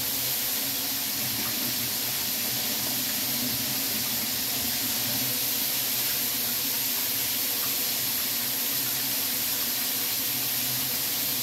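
Steady hiss of a kitchen tap running while hands are washed, over whole chicken wings frying in hot oil in the pan.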